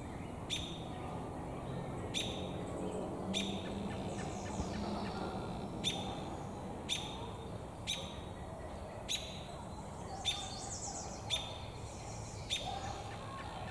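American robin giving short, sharp chirps, one about every second, about ten in all. Fainter high twittering notes come in twice, near the middle and again later.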